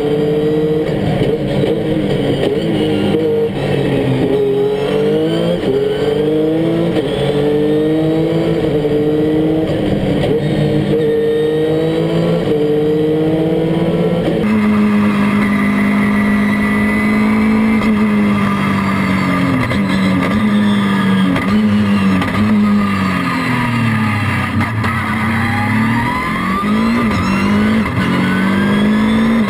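Dacia Duster hill-climb race car's engine heard onboard, revs climbing and dropping repeatedly with gear changes and lifts for corners. About halfway through the sound changes abruptly to a steadier, lower note, which dips deeply for a slow corner near the end and then climbs again.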